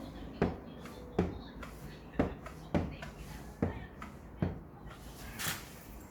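Hand-squeezed silicone caulking gun: six sharp clunks of the trigger, irregularly spaced at less than a second apart, then a short hiss about five and a half seconds in.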